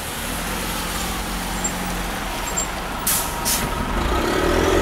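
Street traffic: a heavy road vehicle's engine rumbles steadily and grows louder near the end. Two short hisses come about three seconds in.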